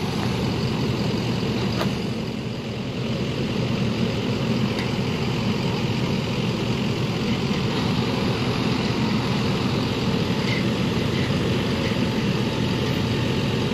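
Diesel engines of a compact track loader and a flatbed truck running steadily at close range.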